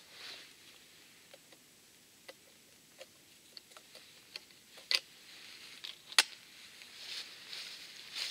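Side-by-side double-barrelled shotgun being handled at the breech: scattered small metallic clicks, a sharp click about five seconds in, then the loudest snap about a second later as the break action is closed. Footsteps on the forest track follow near the end.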